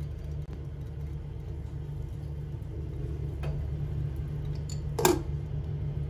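A steady low mechanical rumble, with a light click about three and a half seconds in and a louder sharp knock about five seconds in.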